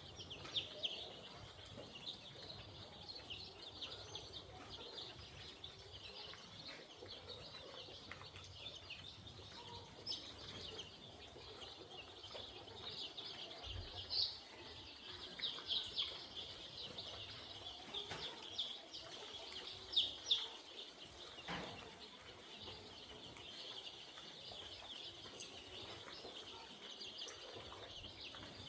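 A flock of young poultry chicks peeping continuously in a dense high-pitched chorus, with a few louder individual peeps standing out now and then.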